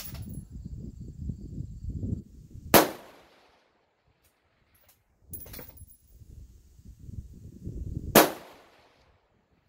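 Two shots from an MPA rifle chambered in .223 Remington, about five and a half seconds apart, each a sharp crack with a short echoing tail. A low rumbling noise builds up before each shot.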